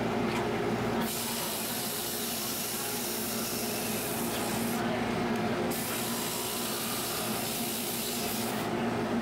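Sanding machine taking plaster off corn cob pipe bowls: a loud hiss over a steady motor hum, starting about a second in, breaking off briefly around the middle and stopping near the end.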